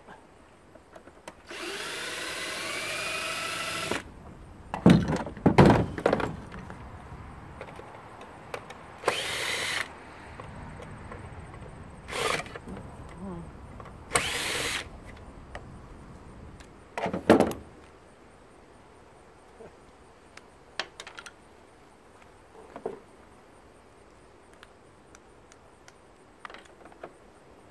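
Cordless drill driving out screws from a plastic foot-massager housing in several short runs, the first whining and rising in pitch for a couple of seconds. Loud knocks and plastic clatter come about five seconds in and again past halfway, with small clicks of parts being handled afterwards.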